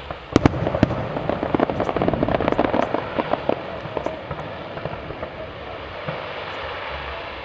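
Aerial fireworks going off: a couple of sharp bangs about half a second in, then a dense run of crackling pops that thins out after a few seconds.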